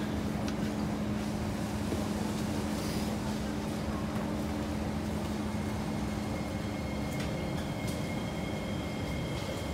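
Kawasaki C151 electric multiple unit running along the line, heard from inside the car: a steady rumble with a low hum. A thin, high, steady whine comes in about seven seconds in.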